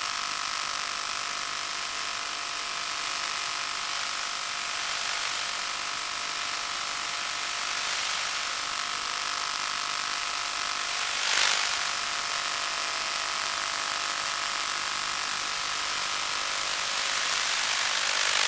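Steady hiss and static from the audio channel of a 1.2 GHz analog FPV video link, with a faint steady buzz of tones under it. There is one short burst of static about 11 seconds in, and the hiss grows louder near the end.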